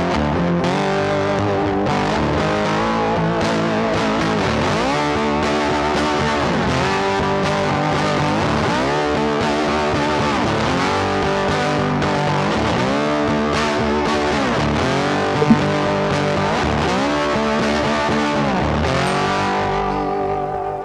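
Background music led by a guitar-like plucked string melody, with notes that slide up and down.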